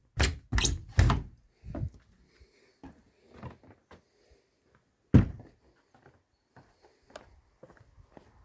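A series of knocks and thumps, four in the first two seconds and the loudest one about five seconds in, followed by faint light clicks and taps.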